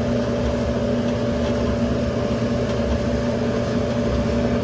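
Electric clothes dryer running: a steady hum from its drum motor and blower, just switched on and holding an even level.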